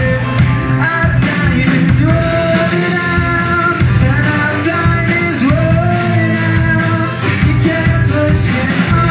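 A live rock band playing: a male singer sings the melody over electric guitar, drum kit and keyboard.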